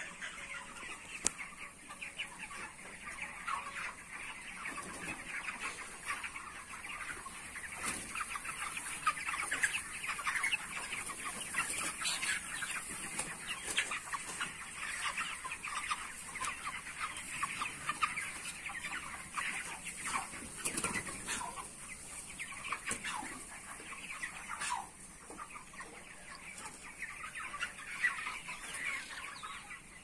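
A large flock of 29-day-old broiler chickens in a shed, many birds calling at once in a dense, unbroken chatter of short clucks and peeps.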